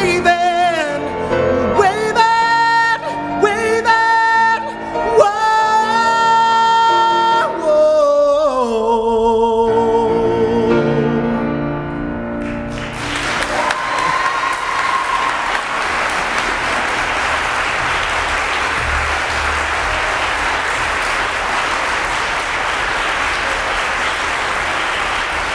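A man sings the song's last long held notes with vibrato over grand piano accompaniment, stopping about nine seconds in; the piano plays on briefly and ends, and an audience starts applauding about thirteen seconds in and keeps clapping steadily.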